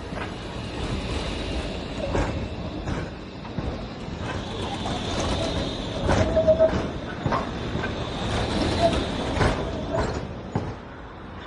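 Tram passing by: a steady rolling rumble broken by repeated sharp knocks of the wheels over the track, with a faint high whine above it. It is loudest around the middle and dies down shortly before the end.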